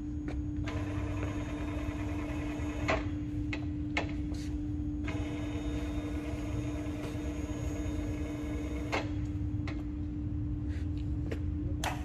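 Machine tool's electric motor running with a steady hum. A higher whine comes in twice for a few seconds, and there are sharp knocks about three seconds in, about nine seconds in, and at the end.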